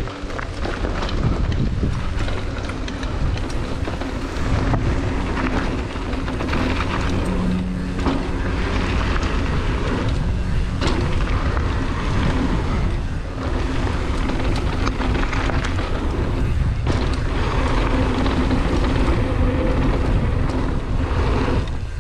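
Wind buffeting an action-camera microphone during a fast downhill mountain-bike descent on a dirt and gravel trail. Tyres run over the loose surface, and the GT Fury downhill bike knocks and clatters over bumps.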